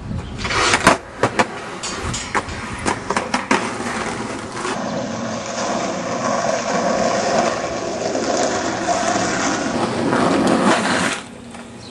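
A run of sharp clicks and knocks, then a skateboard's wheels rolling steadily over asphalt for about six seconds, stopping abruptly near the end.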